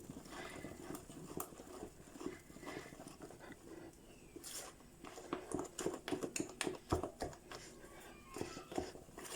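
Lemon cake batter being mixed gently by hand in a bowl to fold in the last spoonful of vinegar: soft wet squelches with light scrapes and taps of the utensil on the bowl. The strokes come more often and louder in the second half.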